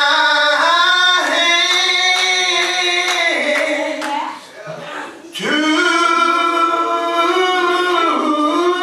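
Gospel singing: long, drawn-out sung notes in two phrases, with a brief break about halfway.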